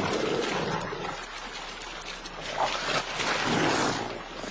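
Wolves and a young bear snarling and growling as they fight over a carcass, in two harsh bouts: one at the start and another about three seconds in.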